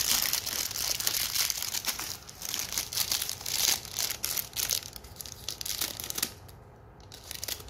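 Crinkling of shiny plastic foil wrapper bags from a toy doll's blind-bag packaging, handled and pulled apart by hand, with short pauses.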